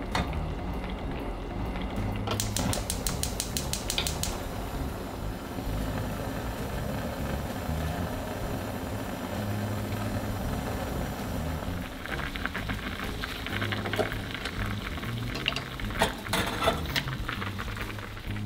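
Earthenware pot of spicy beef soup on a gas burner: a rapid run of igniter clicks for about two seconds near the start, then the soup bubbling at the boil. Scratchy little sounds come in the second half as black pepper goes in.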